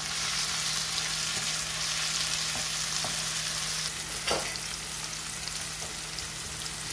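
Diced potatoes, onions, green chilies and tomatoes sizzling in oil in a non-stick frying pan, stirred with a wooden spoon at the start, with one short knock about four seconds in.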